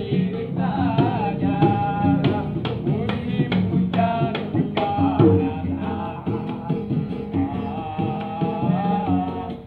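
Dangdut koplo played live: a man sings while slapping quick rhythms on a pair of small hand drums, with an acoustic guitar played alongside.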